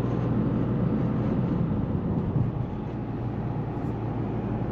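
A car driving at steady speed, heard from inside the cabin: an even, low engine and road rumble.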